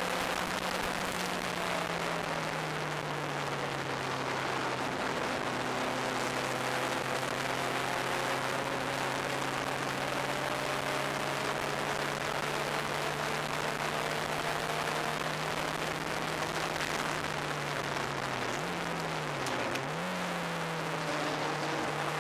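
Turbocharged engine of an open-cockpit track car running at speed, heard from the cockpit under heavy wind rush. The engine note holds steady, then dips and jumps twice near the end as the car slows for a corner.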